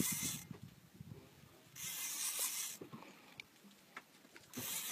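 Fishing reel giving out a hissing buzz in three bursts of about a second each while a fish is fought on a hard-bent jigging rod.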